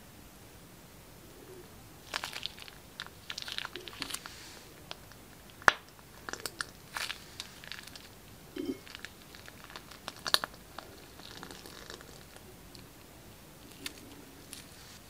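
Plastic piping bag crinkling and crackling in the hand as glossy slime is squeezed out of it, in irregular clusters of crisp clicks. Two sharper, louder clicks come about six and ten seconds in.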